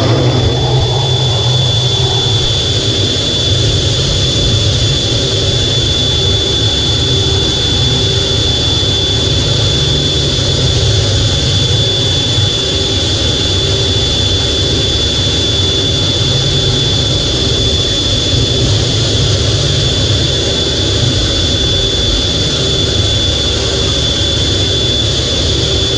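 Twin jet engines of an F/A-18 Hornet heard from inside the cockpit, running steadily at low power while the jet taxis on the carrier deck, with a steady high-pitched turbine whine over a broad rumble.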